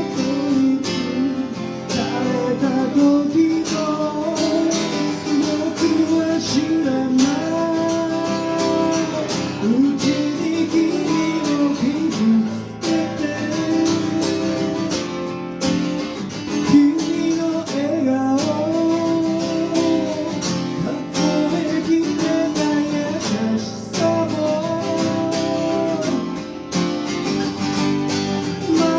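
Acoustic guitar strummed steadily, accompanying a male voice singing a melodic pop ballad line.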